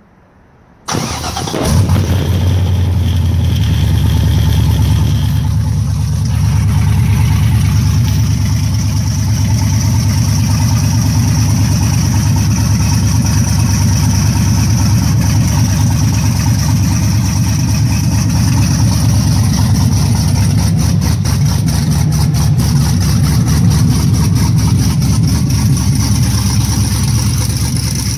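Freshly installed Chevrolet LS3 6.2-litre V8 cranking and catching about a second in on its first start-up, then idling steadily.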